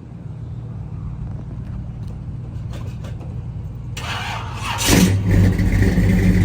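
A steady low engine hum, then about four seconds in the small-block Chevy V8 of a C10 pickup is cranked on jumper cables and catches about a second later, settling into a loud, steady idle.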